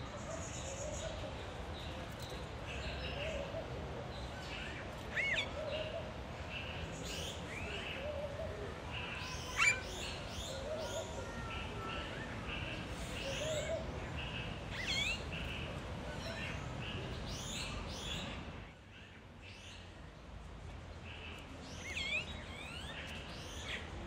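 A mix of aviary birds calling and singing: many short high chirps and whistling glides, quick runs of repeated notes, and low repeated notes underneath. A steady background hiss runs beneath them and drops away briefly about 19 seconds in.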